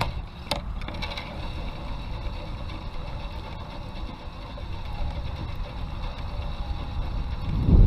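Wind rumbling on the camera microphone while a fishing reel is cranked to retrieve a lure, with a couple of clicks about half a second in.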